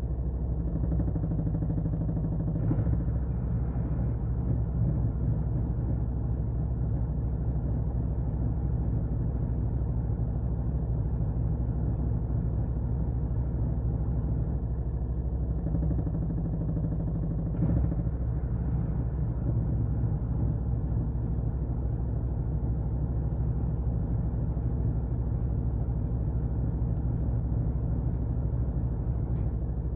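Washing machine running: a steady low motor hum and rumble, whose tone shifts briefly a few times, around three seconds in and again around sixteen to eighteen seconds.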